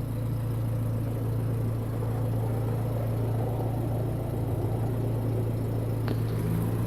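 A 1996 Suzuki X-90's engine idling steadily, a constant low hum with no revving.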